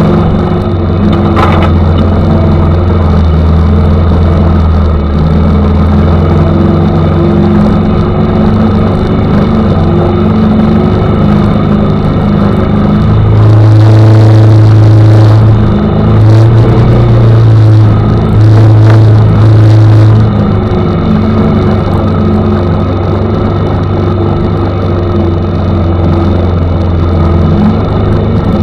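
ATV engine running steadily under load while riding. About halfway through it revs up, running louder and higher for several seconds with two brief let-offs, then settles back to its steady note.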